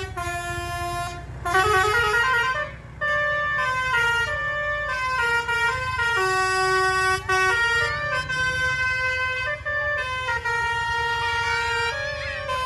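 The basuri telolet horn of a Tunggal Jaya coach playing a melody: held notes stepping up and down, with a rising slide about two seconds in. Under it the bus's engine runs with a low rumble.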